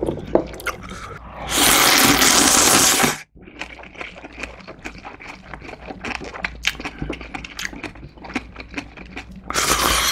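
A person eating ramen: a long loud slurp, then close-miked wet chewing of noodles with small clicks, and near the end a second slurp of broth from a small bowl.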